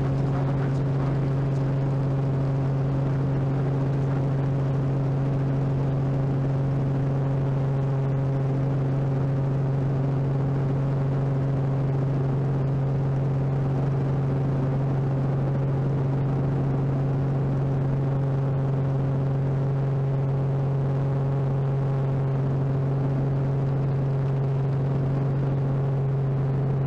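Light helicopter's engine and rotors heard from inside the cockpit: a loud, steady drone with a strong low hum that holds unchanged throughout.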